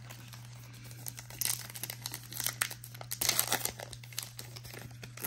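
Foil wrapper of a 2021-22 Donruss basketball card pack crinkling in the hands as it is worked open, with irregular crackles that grow busier about a second and a half in.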